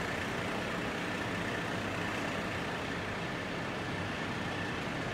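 Steady rumble of an idling heavy vehicle engine, with a faint steady high tone above it.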